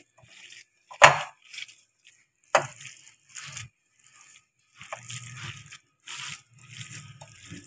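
Hands kneading spiced minced mutton in a glass bowl: soft, wet squishing, with two sharp knocks about one and two and a half seconds in.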